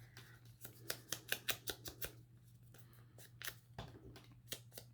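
Edge of a paper piece being inked with Distress Oxide ink: quick, irregular scratchy dabs and swipes of the ink tool against the paper, in two flurries.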